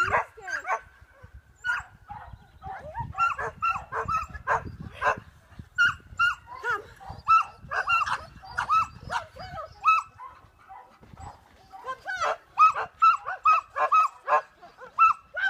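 A dog giving high-pitched barks and yips in quick, repeated series, pausing briefly about ten seconds in before starting again. Wind rumbles on the microphone through the first half.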